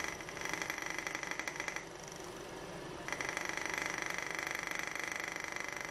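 Thermoacoustic Stirling engine running: a fast, even clatter from its piston in the glass cylinder, with a high whine. The sound drops away for about a second near two seconds in, then comes back.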